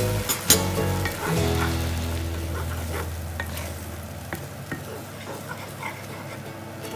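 Wooden spatula stirring liquid scrambled eggs in a stainless steel frying pan, with a light sizzle as the eggs start to set. There are occasional scrapes and taps of the wood against the pan.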